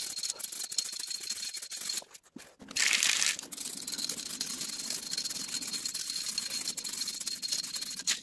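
Aerosol spray-paint can hissing as paint is sprayed in passes, with a light rattle from the can's mixing ball. It breaks off briefly about two seconds in, then gives a louder, close burst of spray about three seconds in.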